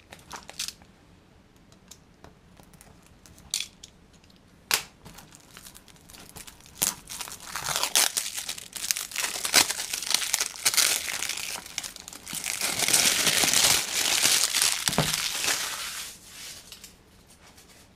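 Plastic shrink wrap being torn and peeled off a small cardboard box, crinkling and crackling, loudest for a few seconds near the end; a few light taps come before it.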